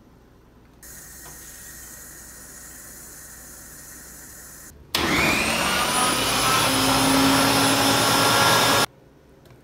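Kitchen tap running water into a blender jar, then a countertop blender motor starts with a rising whine and runs loud and steady for about four seconds blending a green smoothie, cutting off suddenly.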